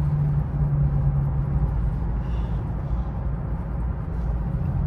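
Infiniti Q50's 3.7-litre V6 running steadily at a moderate cruise, with a continuous low hum under tyre and road noise, heard from inside the cabin.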